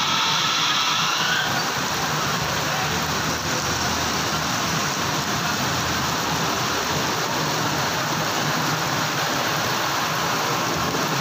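Very heavy rain pouring steadily, a dense even hiss of downpour.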